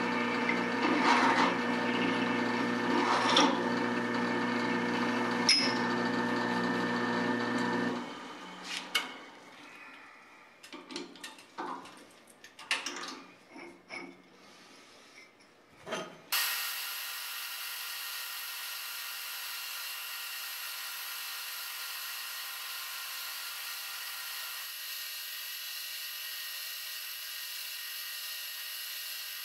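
Drill press motor running steadily, with a louder rasp about every two seconds as steel bars are handled on its table; the motor stops abruptly about eight seconds in. Scattered clinks and knocks of steel bars being set down and stacked follow. About sixteen seconds in, a vertical milling machine's motor comes in running with a steady hum.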